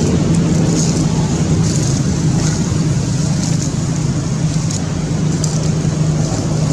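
A motor running steadily, a constant low hum under a loud rumble.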